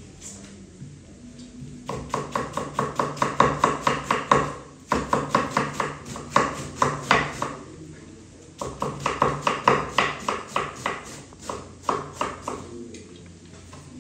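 Kitchen knife rapidly shredding cabbage on a wooden cutting board: fast, even chopping knocks, about five a second, in three runs with short pauses between.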